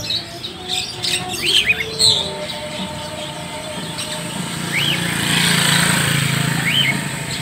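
Caged market songbirds chirping: scattered short calls, with a few arched chirps standing out over a steady background din that swells about two-thirds of the way through.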